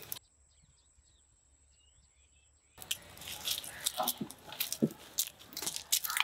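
Near silence for the first two and a half seconds, then a run of sharp dry cracks and crackles: raw peanut shells being cracked open by hand.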